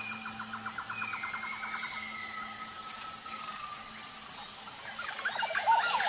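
Rainforest soundscape: birds calling over a steady high insect drone, with a rapid trill near the start, long gliding whistles, and a loud flurry of quick curving calls near the end.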